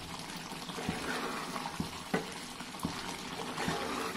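A steel ladle stirring thick, wet curry in a metal pot: sloppy liquid sounds, with several light knocks and scrapes of the ladle against the pot.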